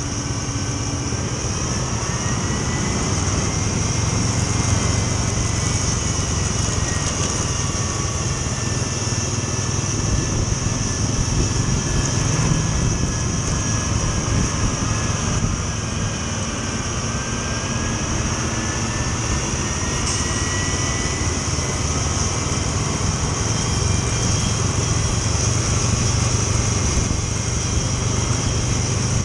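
Engines on a steady uphill climb: a Scania 380 double-decker coach's engine running just ahead, mixed with the engine of the following motorcycle. A thin whine slowly rises and falls in pitch over the noise.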